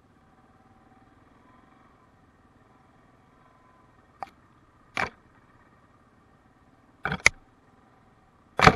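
Yamaha Kodiak 700 ATV's single-cylinder engine running faint and steady under the camera, broken by sharp knocks: a small one about four seconds in, a louder one a second later, a double knock around seven seconds, and a longer clattering rattle near the end.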